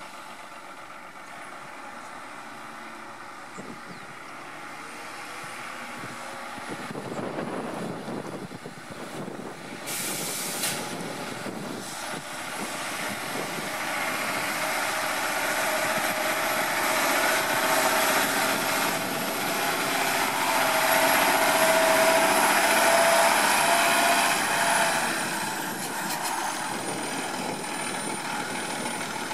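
2008 Autocar WXLL garbage truck's diesel engine approaching and passing, growing steadily louder to a peak about twenty-two seconds in, then easing off. A brief air-brake hiss comes about ten seconds in, and a high whine drops in pitch near the end.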